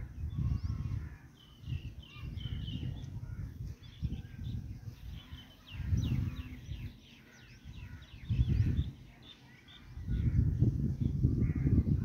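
Birds chattering and chirping in quick runs of short, high calls, busiest from about two to six seconds in. Gusts of low wind rumble on the microphone come and go underneath and are the loudest part.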